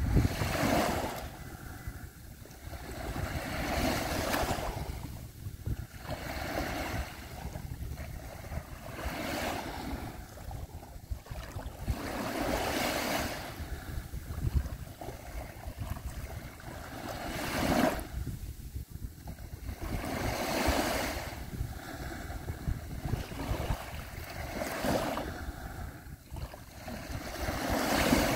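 Small waves washing onto the shore, each rising and falling away every few seconds, with a steady rumble of wind on the microphone underneath.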